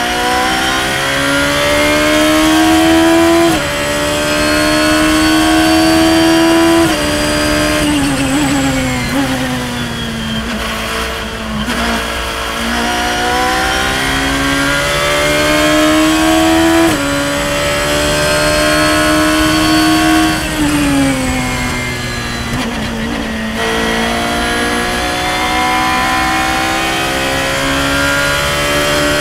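A Radical SR3's high-revving engine heard onboard at race pace, climbing in pitch through the gears with a sharp drop at each upshift. Twice it falls in pitch as the car slows and downshifts for a corner, then it accelerates hard again.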